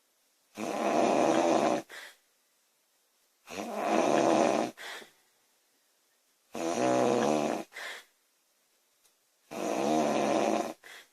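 A woman snoring loudly, four snores about three seconds apart, each with a brief second sound just after it.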